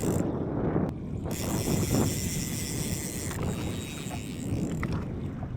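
Wind buffeting the microphone, with water moving around a small boat.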